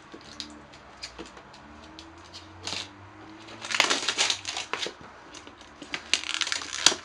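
A cardboard power-supply box being opened and handled: scattered clicks and scrapes, with louder stretches of scraping and rustling about four seconds in and near the end.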